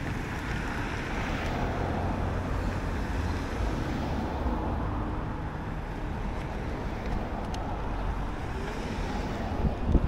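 Street traffic: cars driving through the intersection, a steady rumble with one car passing louder a second or two in. Right at the end, wind starts buffeting the microphone as the e-bike gets moving.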